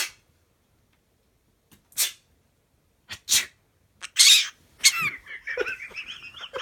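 Parrot making imitated coughs and sneezes: a series of short, sharp bursts, the longest and loudest about four seconds in, followed from about five seconds by warbling chatter. The coughs and sneezes are the bird's way of calling its owner over.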